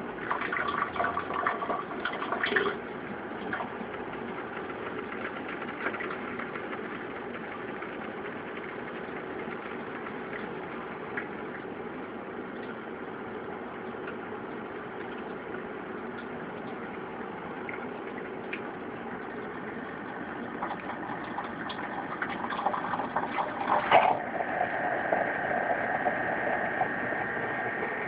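Keurig coffee brewer's pump running as hot water streams into a glass measuring cup, a steady hum with water splashing and filling the cup. The sound grows louder in the last third, with a sudden sharp burst a few seconds before the end.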